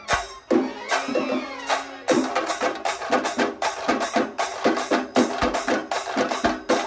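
A Kerala band set and a shingari melam chenda drum group playing a fusion of a film song. A pitched melody sounds over sparse drum hits at first; about two seconds in, fast, dense drumming takes over.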